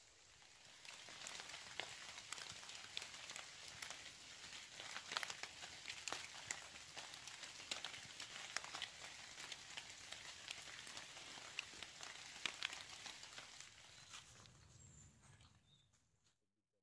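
Rain falling on tree leaves in a wood: a dense hiss of many drops with sharp single ticks among them. It dies away and cuts off near the end.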